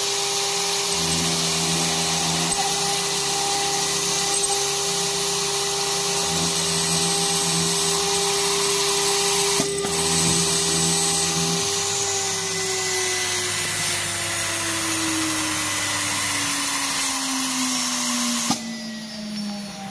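Water-cooled CNC router spindle running with a steady high whine over a loud hiss of cutting aluminium, while lower motor hums switch on and off in short spells. From about two-thirds of the way in, the whine glides steadily down as the spindle spins down, and the hiss cuts off sharply near the end.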